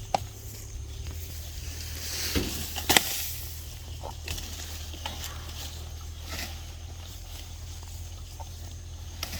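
Stiff brush strokes scraping and rustling over a farm animal's coat, with a few sharp knocks, the loudest about three seconds in, over a steady low hum.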